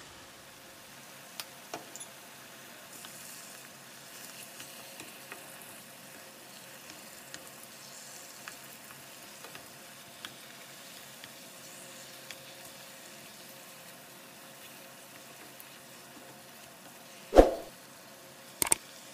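Pork spare ribs and chopped onion sizzling gently in a frying pan while a wooden spoon stirs them, with scattered light taps and scrapes of the spoon against the pan. Near the end, a loud thump and a couple of sharp clicks.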